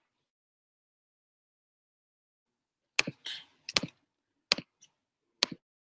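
Dead silence for about three seconds, then a handful of sharp clicks and taps on a computer's keys or mouse, spread unevenly over the next two and a half seconds. The sound comes through a video-call microphone that gates to silence between them.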